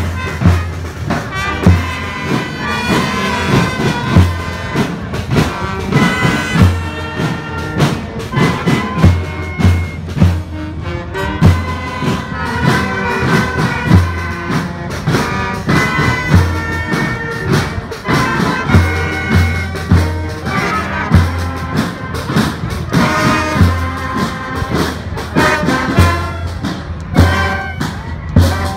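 School marching band playing a march: saxophones, trumpets and a sousaphone carry the tune over a steady bass-drum beat, snare drums and clashing cymbals.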